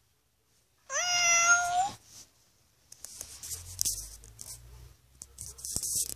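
FurReal robotic toy kitty giving one electronic meow, about a second long, rising slightly in pitch and then holding. It is followed by scratchy rustling and clicks as the toy's fur is handled against the microphone.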